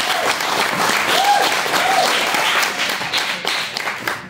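Audience clapping after a speaker finishes, with a voice or two calling out over the applause about a second in; the clapping dies down near the end.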